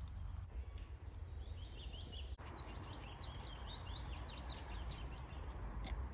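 A small songbird singing a quick run of short, high chirping notes over a steady low rumble.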